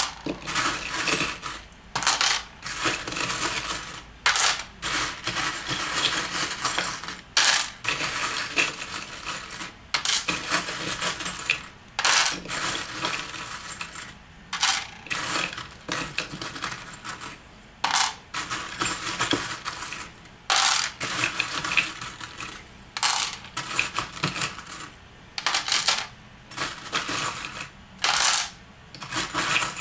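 A handful of small metal charms jingling and clinking again and again as a hand rummages through them in a wooden box and drops them onto a chalkboard, with short pauses between the bursts.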